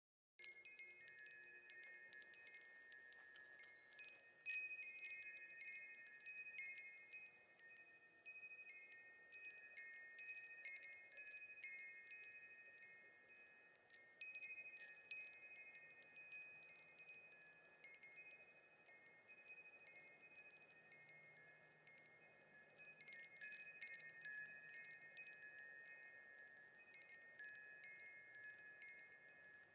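Wind chimes ringing: many irregular, overlapping high-pitched strikes, each ringing on, starting about half a second in.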